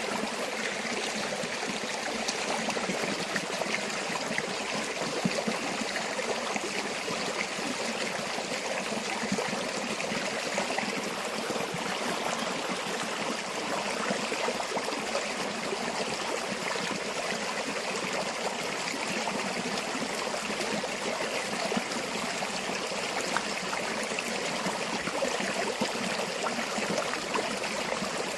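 A river or stream flowing and burbling over stones: steady, continuous running water with small splashes.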